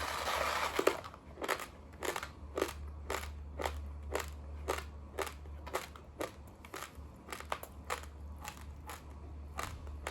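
Raw, uncooked long-grain basmati rice being crunched between the teeth: a dense crackle in the first second, then sharp crunches about twice a second as the grains are chewed.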